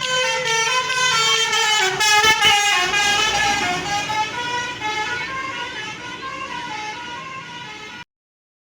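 Bus 'telolet' Basuri multi-tone air horn playing a melody, a quick run of horn notes stepping up and down in pitch, cutting off suddenly about eight seconds in.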